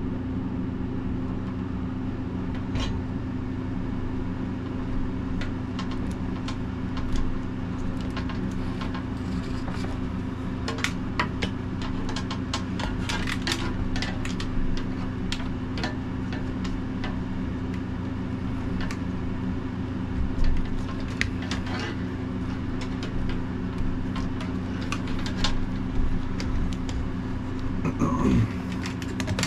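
Electrical wires being worked by hand through a wooden cabin wall: scattered light clicks and rustles, busiest in the middle and again near the end, over a steady low machine hum.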